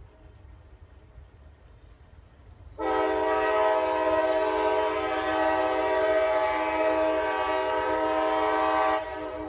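Train horn sounding one long, steady blast of about six seconds, starting suddenly about three seconds in and cutting off near the end. Fainter horn tones are heard before and after it.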